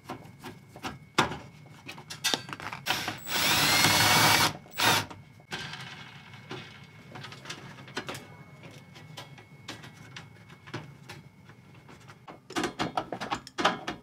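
Fasteners being worked on the thin sheet-metal case of a portable diesel heater. A power driver whirs for about a second and a half with a rising whine, and a second short whir follows, then come scattered light clicks and scrapes of tool and small screws on the metal. A quick run of sharp metallic clicks comes near the end.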